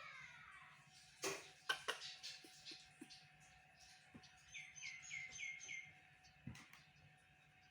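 Five quick, high, downward-slurred chirps in a row a little past the middle, from a small animal, with a few light clicks and knocks before them and a faint steady tone underneath.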